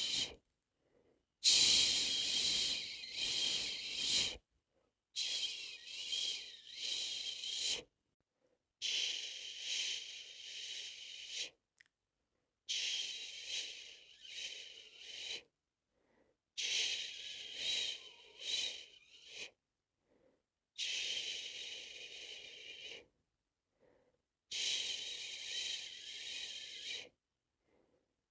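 A person shushing, 'shhh' drawn out for two to three seconds at a time and repeated seven times with short breaks for breath, the soothing hush used to lull a baby to sleep.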